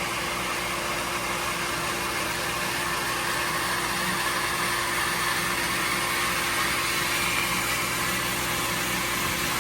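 Electric water jet pump running steadily with a constant hum, building pressure in the house water system.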